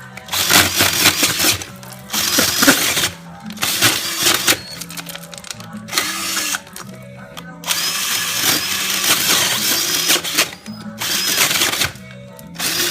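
Power drill with a 3-inch hole saw cutting into a main waste pipe, running in about five bursts of one to three seconds with short pauses between. Background music plays underneath.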